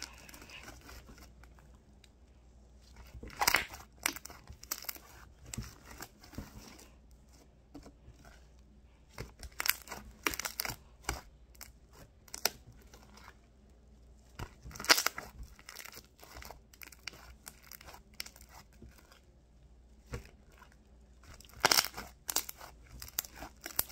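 Sticky homemade slime of glue and shaving cream being stretched and squished by hand: irregular crackles and small pops, with a few louder bursts.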